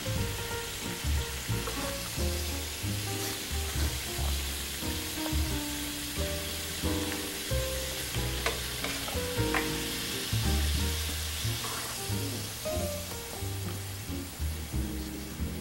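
Firm tofu sizzling steadily in soy-sauce seasoning in a hot frying pan, with light scraping of a wooden spatula. Background music plays underneath.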